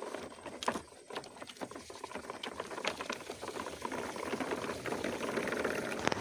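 Irregular crackling and crunching of dry, crusted sandy ground as plastic toy trucks roll over it and someone walks across it.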